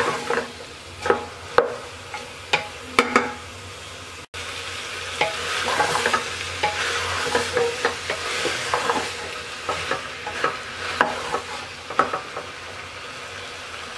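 Wooden spatula stirring and scraping spiced vegetables in a metal pressure cooker pot, with a steady sizzle as they fry in oil. The scrapes come in repeated strokes, and the sizzling grows louder about five seconds in.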